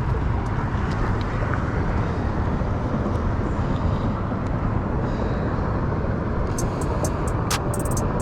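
Steady low outdoor rumble, with a quick series of sharp ticks starting near the end.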